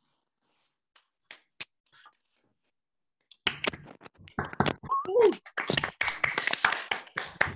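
Several people clapping over a video call, heard as dense, choppy hand claps that start together about three and a half seconds in after a near-silent pause with a couple of faint clicks. A short voice call rises and falls a second or so after the clapping begins.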